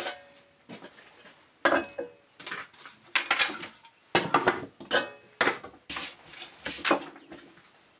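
Wooden pieces and hand tools being handled and set down on a wooden workbench: a string of separate knocks and clatters, a few with a short ring.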